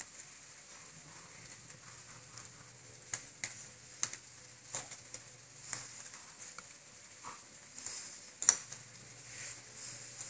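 Handling noise: scattered light clicks and taps as small plastic toy figurines and the camera are handled, the loudest about eight and a half seconds in, over a steady hiss and faint hum.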